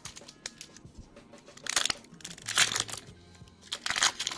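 Foil wrapper of a Pokémon booster pack crinkling as it is handled, in three short rustling bursts, over soft background music.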